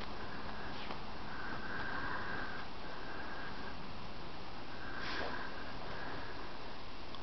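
Border Collie sniffing and snuffling in bursts with her nose pushed into powder snow while burying a tennis ball, with one sharper snort about five seconds in.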